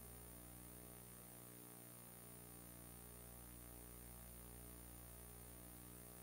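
Near silence: a low, steady electrical mains hum with faint hiss.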